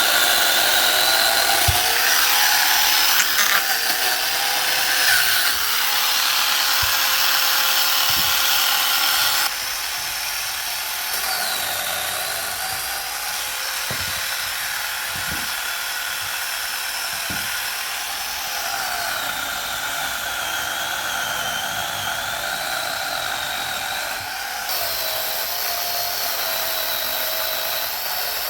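Motorised saw running continuously while cutting firewood logs, its whine dipping and rising in pitch as it bites into the wood, with a few light knocks.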